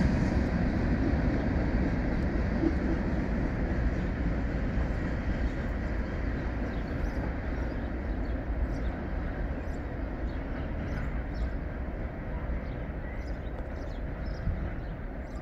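Rumble of a long mixed freight train's last cars rolling away on the track, fading steadily as the end of the train recedes.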